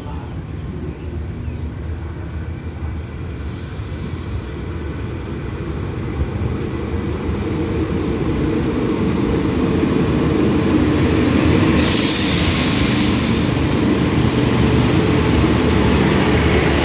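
Diesel passenger railcar train pulling into the station, its engine and wheel rumble growing steadily louder as it approaches and draws alongside the platform, then holding steady. A brief hiss of air about twelve seconds in.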